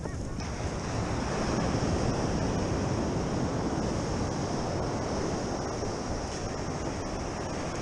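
Ocean surf washing onto a sandy beach, with wind rushing over the microphone; a steady rushing noise that swells about half a second in and then holds.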